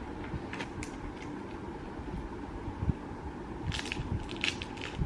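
A person chewing yakwa, a Korean fried honey cookie, close to the microphone: scattered short mouth clicks, growing denser near the end, over a steady low hum.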